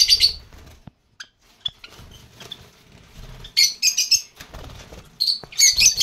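Cage birds in a mixed aviary chirping in quick, rapid-fire series: one burst at the start, another about three and a half seconds in, and a longer one from about five seconds on.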